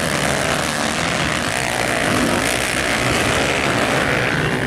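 Motocross dirt-bike engines running at race pace, a steady buzz of several bikes whose pitch rises and falls with the throttle.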